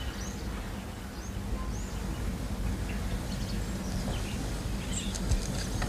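Outdoor ambience: a steady low rumble with small birds chirping a few times in the first couple of seconds, and a few faint clicks near the end.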